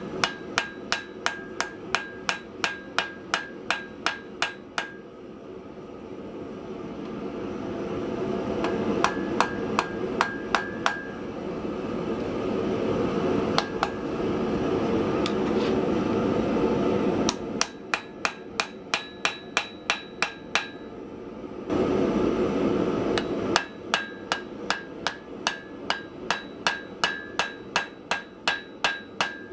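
Hand hammer striking hot steel on an anvil while forging, in runs of blows about three a second, each strike ringing. Between the runs a steady rushing roar from the forge takes over, loudest in the middle of the stretch and again briefly just before the last run.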